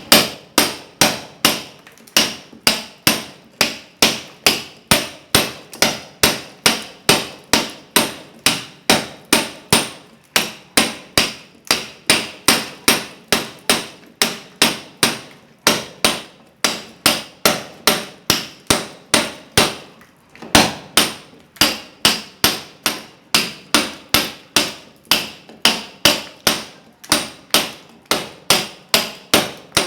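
Hammer (marreta) striking a steel chisel (talhadeira) to chip into a masonry wall. The sharp metallic blows land steadily about two a second, with a few brief pauses between runs.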